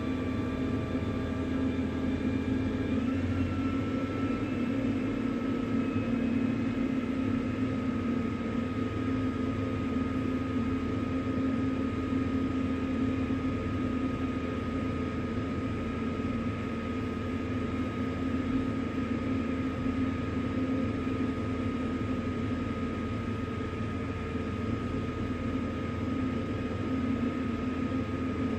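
A motor or engine running steadily, with a droning hum and a high whine that steps up slightly in pitch about three seconds in, then holds.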